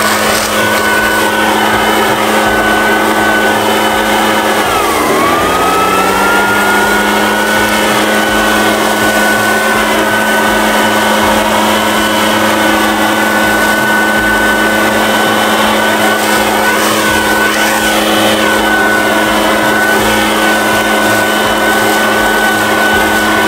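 Echo PB-580T backpack leaf blower's two-stroke engine running at high throttle, with the rush of air from the nozzle. About five seconds in, the engine note drops briefly and climbs back up.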